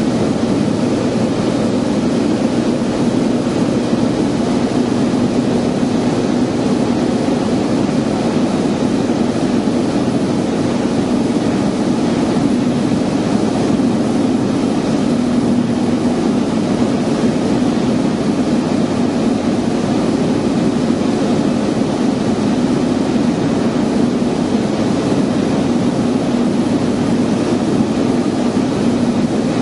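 Piper Turbo Arrow's turbocharged six-cylinder engine and propeller running steadily in flight, heard inside the cabin as an even drone with a low hum.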